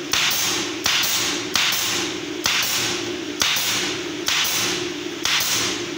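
Pneumatic nail gun firing nails into a board about seven times, a little under once a second. Each shot is a sharp thud followed by a short hiss of exhaust air.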